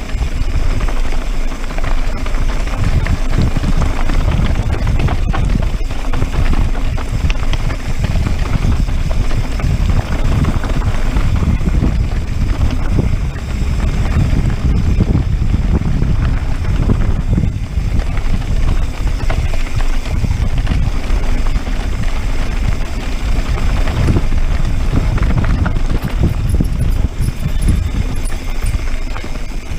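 Wind buffeting the microphone of a camera on a moving mountain bike, mixed with tyres rolling over a rocky dirt trail and the bike rattling over bumps.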